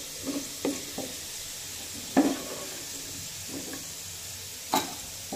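Crisp-fried potato sticks sizzling in hot oil in a nonstick frying pan. A wooden spatula knocks and scrapes against the pan as the potatoes are lifted out, with sharper knocks about two seconds in and near the end.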